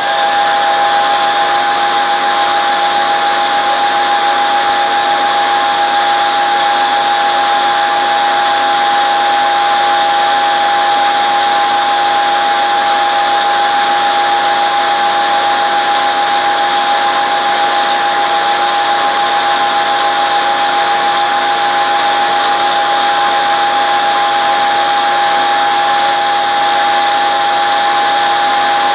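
Metal lathe running at a steady speed: a constant high whine over an even mechanical hum, unchanging in pitch and level.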